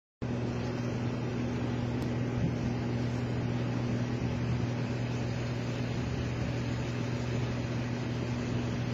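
Steady low drone and rushing noise of a car heard from inside its cabin, unchanging throughout.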